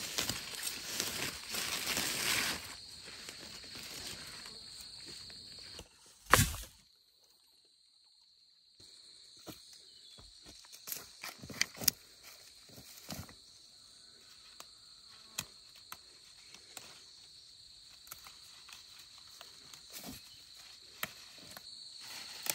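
Outdoor field sounds: a steady high insect drone with rustling, footsteps and scattered sharp clicks. One loud knock about six seconds in, then a couple of seconds of near silence.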